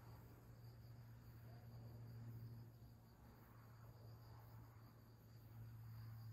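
Faint insects chirring in a steady, pulsing high buzz, over a low steady hum.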